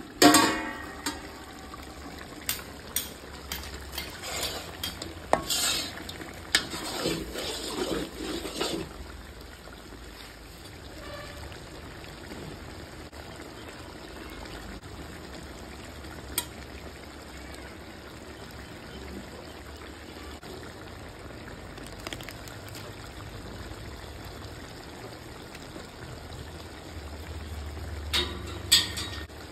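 Country chicken frying in a large iron kadai: a steady sizzle, after a loud metal clank as the steel plate lid comes off and a run of clanks and scrapes over the first several seconds. Two more metal knocks near the end.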